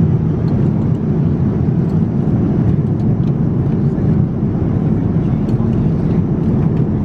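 Steady cabin noise of a Boeing 787-9 in cruise: an even, deep rush of airflow and engine noise with no breaks.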